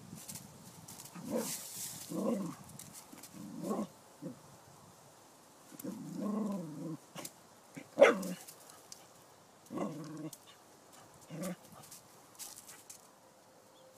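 Dog barking at a snake, about seven short separate barks with a sharp, loud one about eight seconds in.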